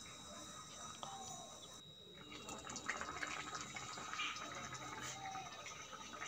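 Crab curry gravy simmering in a kadai, with faint bubbling and small irregular pops that grow busier after about two seconds as it comes toward the boil.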